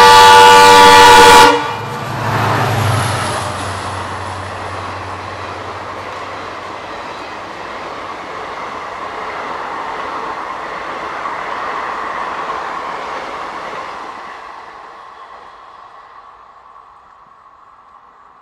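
Locomotive horn sounding one loud blast of about a second and a half, then a train running past at speed, its rushing wheel-and-rail noise swelling and then fading away over the following seconds.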